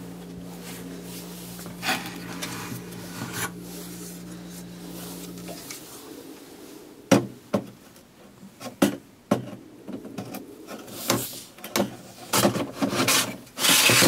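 A 2010 Mac Pro's aluminium riser card tray, with its processor heatsinks, being slid back into the metal case: scraping and rubbing with a run of sharp knocks and clacks in the second half as it goes home. A steady low hum stops a little past halfway.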